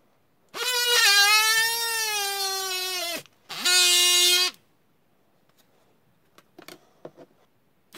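Homemade DC-motor mini drill whining as it spins up and drills through a ruler, its pitch sagging under the load before it winds down; it is then run briefly again with the bit spinning free at a steady pitch. A few faint clicks follow near the end.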